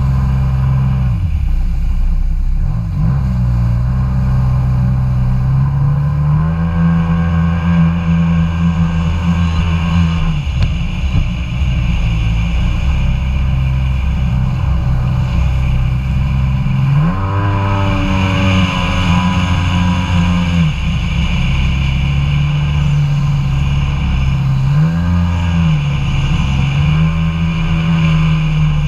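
Kawasaki Ultra 150 jet ski's three-cylinder two-stroke engine running on the water, its pitch falling and rising several times as the throttle is eased off and opened again, with a short blip of revs near the end.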